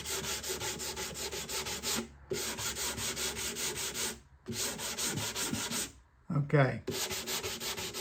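220-grit sandpaper rubbed over a cedar guitar top in quick back-and-forth strokes, mainly taking off the old finish rather than wood. The strokes come in three runs of about two seconds, with short pauses between them.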